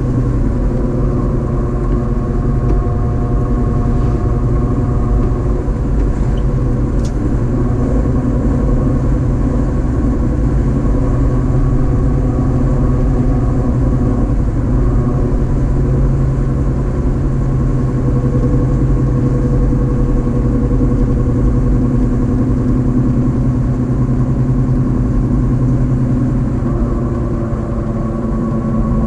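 A car's engine running steadily while driving, its hum drifting slowly in pitch, with road noise underneath.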